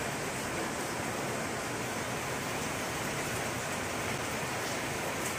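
Heavy downpour falling steadily on a tiled patio and on potted plant leaves: an even, unbroken hiss of rain.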